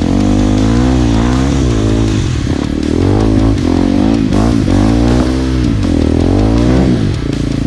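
Dirt bike's single-cylinder four-stroke engine revving up and down over and over as the throttle is opened and closed while riding a trail.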